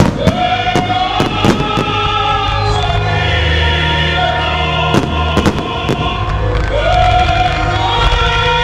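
Choral opera music with long held and sliding sung notes, over which fireworks shells go off in several clusters of sharp bangs: near the start, about a second and a half in, about five seconds in and near the end.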